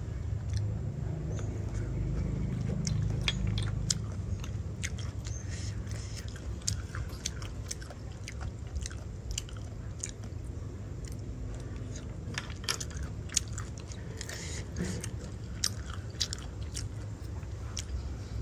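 A person eating boiled snails, biting and chewing, with many small sharp clicks scattered irregularly through it.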